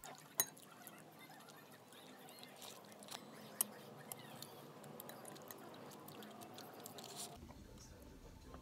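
Faint sounds of someone chewing a mouthful of noodles, with a couple of short, sharp clicks, one about half a second in and one about three and a half seconds in.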